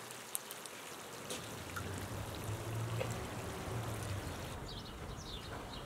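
Minced-meat and tomato sauce sizzling and bubbling in oil in a wide sadj pan over a wood fire, with scattered small pops. Birds chirp near the end.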